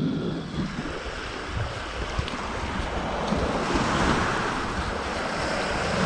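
Sea surf washing in, swelling to a peak about two-thirds of the way through and then easing off, with wind rumbling on the microphone.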